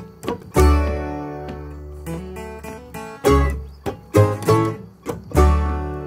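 Live acoustic bluegrass band of acoustic guitar, banjo, mandolin and upright bass playing an instrumental passage without singing. Three strong accented chords with deep bass land about half a second, three seconds and five seconds in, each left to ring and fade.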